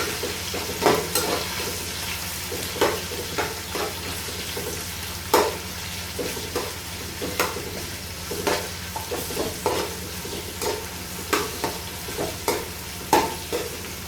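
Garlic and onion sautéing in hot oil in a pan: a steady sizzle, with a spatula scraping and knocking against the pan at irregular intervals as it is stirred.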